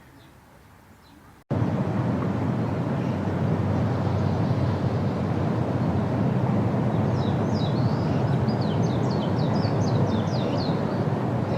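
Faint bird chirps cut off about a second and a half in, giving way to a steady loud rushing roar of flowing water. In the second half a small bird sings a rapid run of short, high, downward-sliding chirps, about three a second, over the rush.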